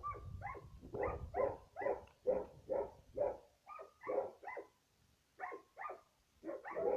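A dog barking over and over, about two barks a second, with a short pause about five seconds in before the barking picks up again.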